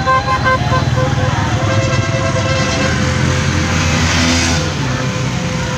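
Small motorcycle engines running as a motorcade rides past, with a vehicle horn beeping in short toots that stop about a second in. A brief rush of noise comes about four seconds in.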